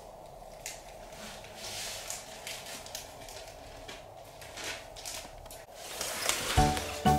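Light rustling and scattered small clicks of plastic toy pieces and packaging being handled, over a faint steady hum. Music with clear notes starts near the end.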